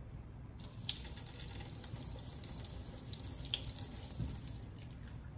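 Pull-down kitchen faucet turned on about half a second in, its water hissing into the sink with a couple of sharper ticks. The stream is weak: low water pressure from a blocked aerator.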